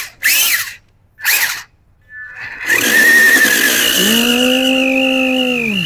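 Toy RC cars' electric motors whining: two short rising-and-falling bursts, then a longer run from about two seconds in with a wavering high whine.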